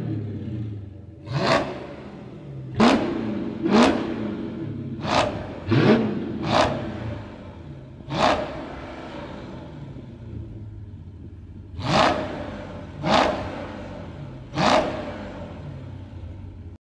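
Dodge Charger SRT8's 6.4-litre HEMI V8 idling through its exhaust, blipped about ten times in short, sharp revs that rise and fall quickly back to idle, with a longer gap at idle around the middle. The sound cuts off abruptly near the end.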